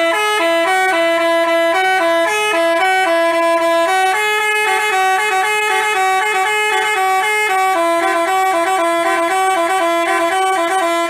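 Bus telolet horn, a Basuri-type multi-note musical horn, playing a quick melody of short notes that step between a few pitches, then cutting off abruptly.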